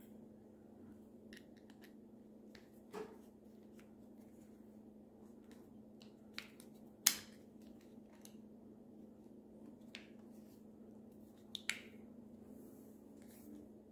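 Sparse small clicks and ticks of an Allen key working in a lock-on handlebar grip's clamp screw as it is tightened, the sharpest single click about seven seconds in, over a faint steady hum.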